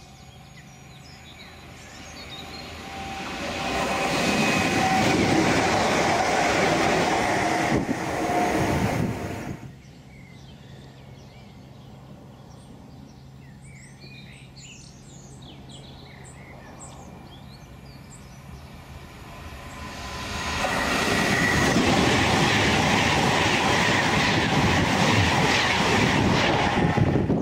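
Two express electric trains pass at speed, each swelling from a distant rumble to a loud rush of wheels on rail with a clickety-clack; the first stops suddenly about ten seconds in. The second is a Class 390 Pendolino electric multiple unit. Between the passes, birds chirp over a low steady hum.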